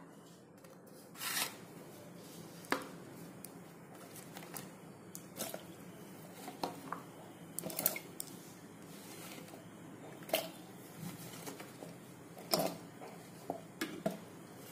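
Cut vegetable pieces dropped by hand into an aluminium pot of water: about a dozen irregular knocks and clatters against the metal, the loudest near the end.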